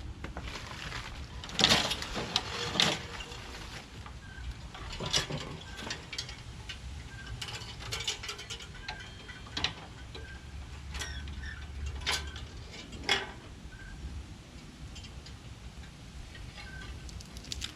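Scattered mechanical clicks and knocks over a low rumble, the loudest about two seconds in.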